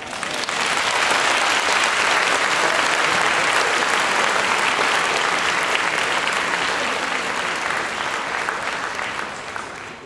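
Audience applauding: dense, steady clapping that starts at once and tapers slightly toward the end.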